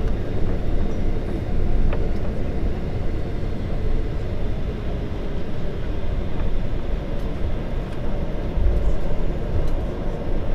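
Cabin noise of a Boeing 737-800 taxiing, heard from a window seat beside the wing: the CFM56 engines' steady idle hum over a low rolling rumble, with a heavier low bump about eight and a half seconds in.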